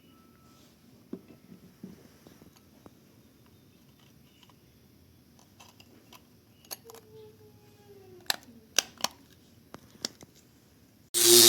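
Light handling noises: scattered sharp clicks and knocks, and a squeak that slides down in pitch about seven seconds in. Near the end a loud steady hiss with a hum cuts in suddenly.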